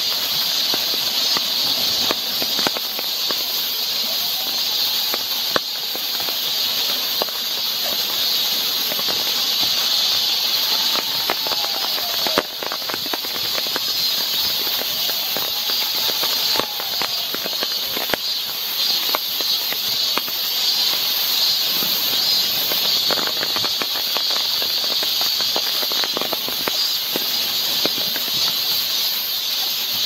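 Steady rain falling on forest foliage and a wet wooden boardwalk, with many scattered drop ticks, under a continuous high-pitched drone of summer cicadas.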